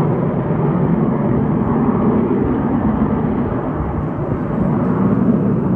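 Jet engines of a Blue Angels formation of F/A-18 Super Hornets flying overhead: a steady, loud rumble.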